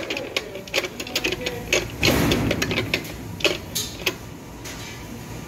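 Sheet-metal hopper panel being handled into place: irregular metallic clicks and knocks, with a longer scraping clatter about two seconds in and a few more knocks a second or so later.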